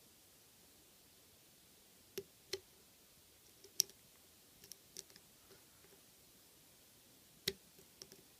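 Lock pick and tension wrench working the pin stack of a Draper Expert 82 mm padlock, giving a few scattered, sharp little metallic clicks as the pick probes pin 5, where the picker feels slight movement.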